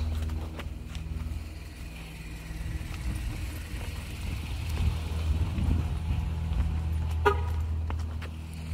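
A car engine runs with a steady low hum, and the car's horn gives one short toot about seven seconds in, a signal to a walker that he is heading the wrong way.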